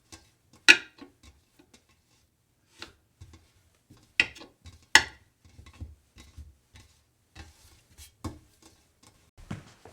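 Scattered sharp clicks and knocks at an uneven pace, the loudest about a second in and a pair around four and five seconds in.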